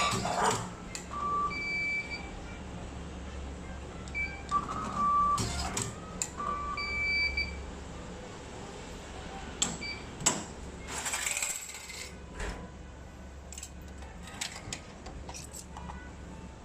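Short electronic beeps from a machine's buttons, several in the first half, with sharp clicks and clatter and a brief rustle of noise about two thirds of the way in.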